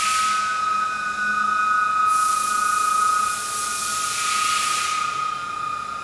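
Seagull-bone whistles blown by compressed air through rubber hoses, holding steady high whistle tones, several notes at once. A rush of air hiss sounds with them at the start and swells again for about three seconds from two seconds in.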